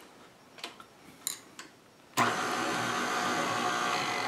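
A few light clicks, then about two seconds in a KitchenAid stand mixer's motor switches on suddenly and runs steadily at low speed.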